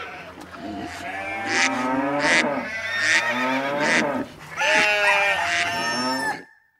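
A run of farm animal calls, mooing and bleating, that stops abruptly shortly before the end.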